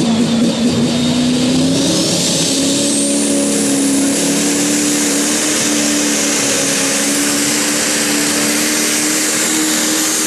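Pro stock pulling tractor's turbocharged diesel engine revving at the start line. About two seconds in, the revs climb and a turbo whistle rises with them. It then holds at high revs with a steady whine as the tractor loads against the sled and starts its pull.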